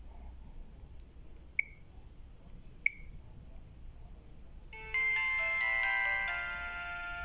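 Two short high blips, then about five seconds in a mobile-phone ringtone starts: a polyphonic melody of several notes sounding at once. It is an Alcatel OT-2005D ringtone played on a Samsung GT-B7722i.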